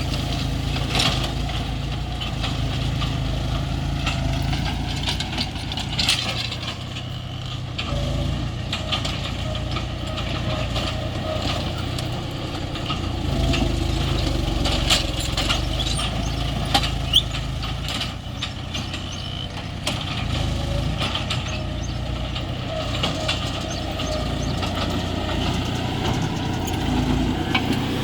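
John Deere tractor's diesel engine running steadily at work, with a few sharp knocks now and then.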